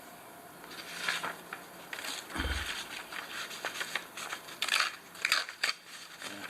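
Victorinox penknife blade drawn in a series of short rasping strokes, a sharpness test of an edge that is no longer shaving sharp after a failed sharpening. There is a low thump about two and a half seconds in.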